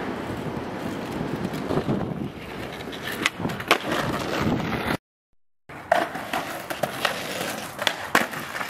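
Skateboard wheels rolling over rough asphalt, with several sharp clacks of the board hitting the ground during tricks. The sound cuts out briefly about five seconds in, then more rolling and clacks follow.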